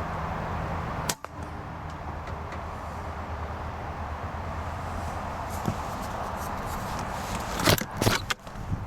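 Steady low hum with a single sharp click about a second in, then three quick loud knocks or cracks near the end.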